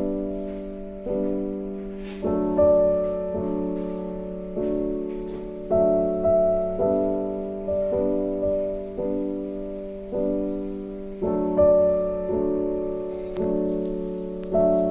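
Background piano music: gentle chords struck about once a second, each one dying away before the next.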